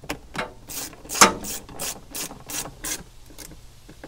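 5/16-inch screws being driven back into a 1985 Ford F-150's blower motor mounting flange with a hand socket tool: a quick run of short strokes, about three a second, that stops a little after three seconds in.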